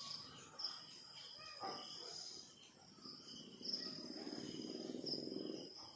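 An insect's high, thin call, each one a short bright onset that holds steady for about a second, repeating roughly every second and a half. A faint low hum comes in under it in the second half.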